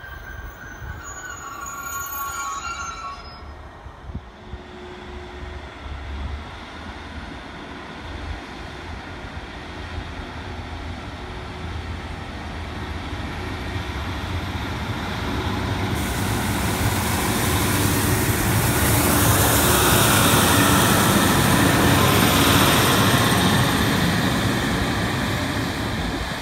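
Class 150 Sprinter diesel multiple unit approaching along the platform line, its diesel engine and wheels on the rails growing steadily louder to a peak in the second half, then easing off near the end.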